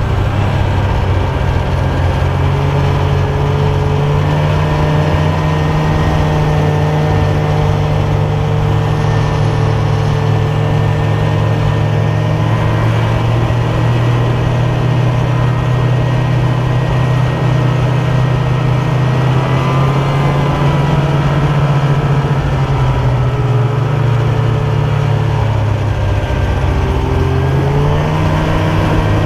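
Snowmobile engine running steadily at cruising speed, its pitch dipping and rising again briefly about two-thirds of the way through and once more near the end as the throttle is eased and reopened.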